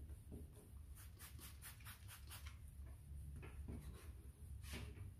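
Faint scratching of a foam-backed sanding disc rubbed by hand over a faded plastic headlight lens during wet sanding. It comes as a quick run of strokes, about four a second, from about one to two and a half seconds in, with a few more strokes later, over a steady low hum.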